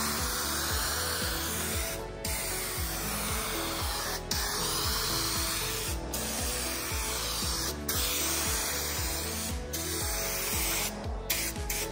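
Aerosol spray can hissing as clear coat goes onto a truck hood in passes, the spray cutting out briefly about every two seconds between passes. Background music with a steady beat plays underneath.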